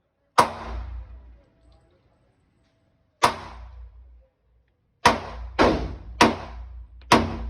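Six single gunshots at a shooting range, each with a short echoing tail. One comes early, a second about three seconds later, then four more in quicker succession, roughly half a second to a second apart.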